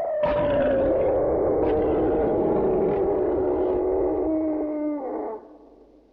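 Library dragon roar sound effect: one long, low creature roar whose pitch slides slowly downward, then fades out about five seconds in.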